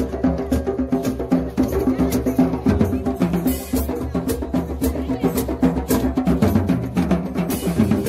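Drum circle of hand drums, djembes and a frame drum, beaten together in a fast, steady rhythm.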